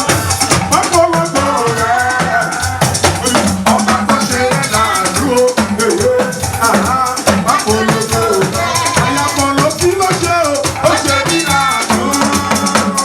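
Live church band music: a driving, steady rhythm of shakers and drums under moving keyboard and bass lines.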